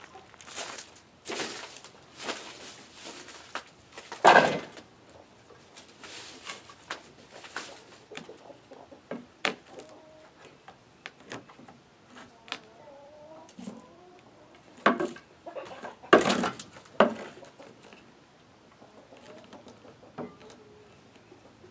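Irregular knocks, thumps and scraping handling sounds close by, the loudest thump about four seconds in and a cluster of loud ones around sixteen seconds in. Chickens cluck faintly at times.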